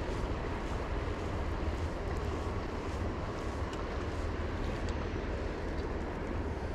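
Wind buffeting the microphone: a steady low rumble with a rushing hiss and no clear pitch.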